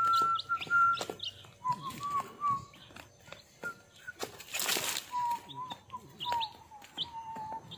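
Week-old chicks peeping in short, high, falling chirps while pecking at crumble feed, their beaks making quick clicks. A long, wavering whistle runs through much of it, stopping and starting, and a brief burst of noise comes about four and a half seconds in.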